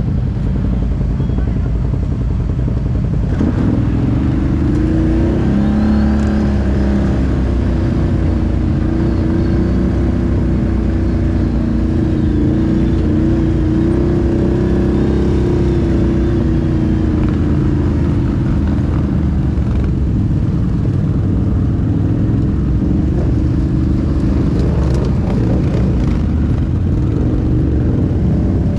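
ATV engine running under way over a steady low rumble, its engine note coming in about three seconds in and rising and falling slightly in pitch.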